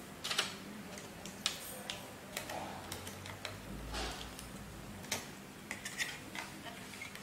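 Scattered light clicks and taps from handling a laptop RAM module at its memory slot, about six clear ones.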